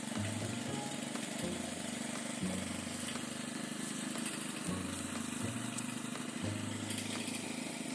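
Motor-driven grass crusher for cattle fodder running steadily. Its low hum steps up and down in pitch every second or two, over a steady rushing hiss.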